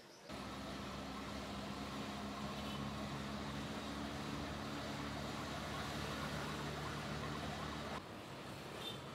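Vehicle engine running steadily with road and traffic noise, cutting in suddenly at the start; about eight seconds in it drops to a quieter steady hum heard from inside the cabin.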